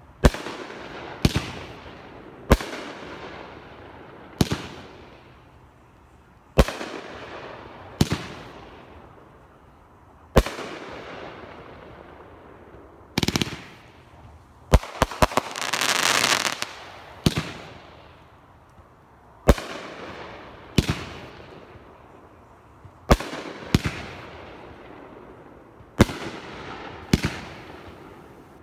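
Dominator 'Bigger Than Yours' firework cake firing shot after shot, a sharp bang every one to two seconds, each with a long fading echo. About halfway through comes a quick cluster of pops and a short hiss.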